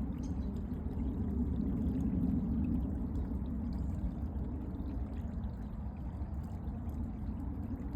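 Small creek flowing, a steady low rush of running water that swells slightly a couple of seconds in.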